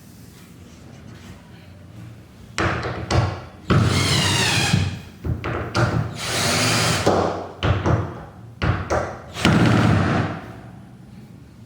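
Power drill running in a series of short bursts with pauses between, its whine wavering in pitch. It starts about two and a half seconds in.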